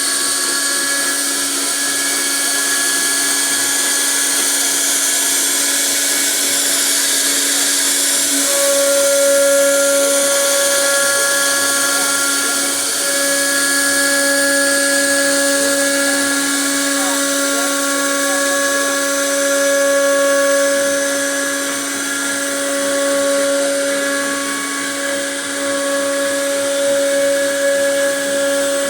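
CNC router spindle running at high speed while cutting a design into a wooden door panel: a steady high whine over a constant hiss of cutting, rising and falling a little in loudness.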